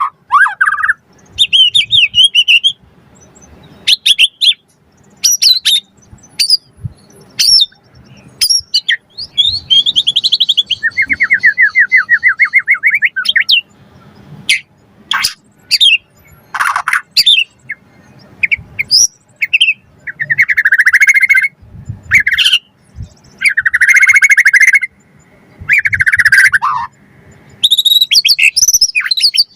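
White-rumped shama in vigorous full song, singing a string of varied phrases: sharp quick whistles, a fast trill, and buzzy chattering notes, with short pauses between phrases.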